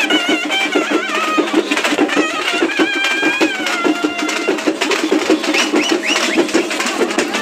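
Festival drums beaten in a fast, steady rhythm, with a high wavering melody over them for the first half.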